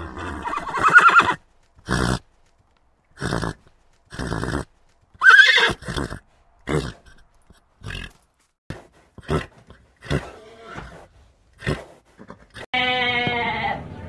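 Horses whinnying in a string of short separate calls about a second apart, the loudest at the start and near six seconds in. About a second and a half before the end, a lamb gives one long, even-pitched bleat.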